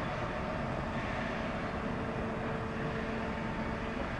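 Freight train shunting at the station: a steady low rumble with a steady hum over it, and the hum stops near the end.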